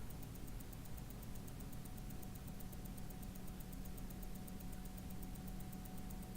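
Rolex calibre 3135 automatic watch movement ticking at 28,800 beats per hour: a fast, even tick about eight times a second, heard close up. A low steady hum runs underneath.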